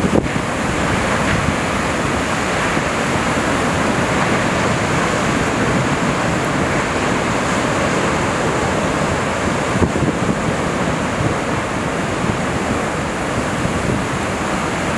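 Pacific Ocean surf breaking and washing in over a rocky shore: a loud, steady rush of waves and foam with no pause.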